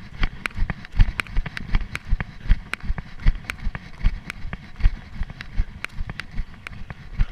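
A runner's footfalls on grassy, stony ground, about three steps a second, thumping through a chest-mounted GoPro as he runs hard.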